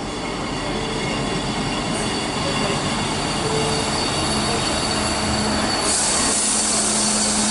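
Class 158 diesel multiple unit running into the platform and passing close alongside, its underfloor engines and wheels on the rails growing slowly louder. A thin high squeal from the wheels or brakes sits over it, and a stronger hiss comes in about six seconds in.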